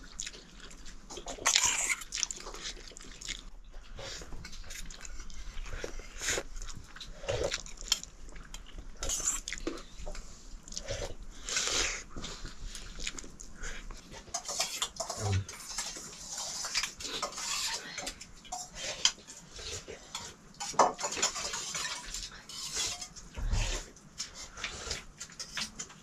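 Spoons and dishes clinking and scraping in quick, irregular short knocks, as people eat from their plates.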